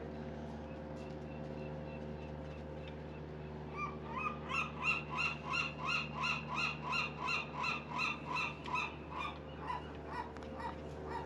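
An animal calling in a fast, even series of about twenty short calls, roughly three a second, starting about four seconds in and trailing off near the end.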